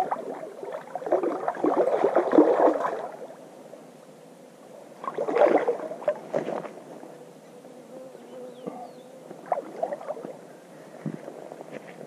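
Water splashing and sloshing in irregular bursts, loudest over the first three seconds, again around five to six seconds in and briefly near ten seconds.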